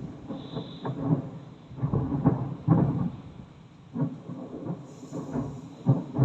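Fireworks shells bursting in an irregular series of low booms, the loudest near the end.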